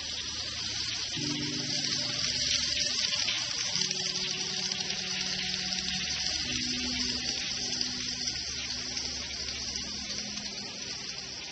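N-scale model train, a Norfolk & Western 611 steam locomotive pulling passenger cars, running forward along the track. It gives a steady hissing whir with low motor hum tones that shift in pitch every second or two.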